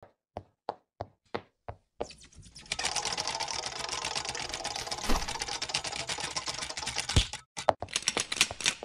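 Cartoon sound effects for an animated logo intro: about six light taps in the first two seconds, then a fast, dense mechanical clattering like a typewriter, broken by a couple of heavier thumps.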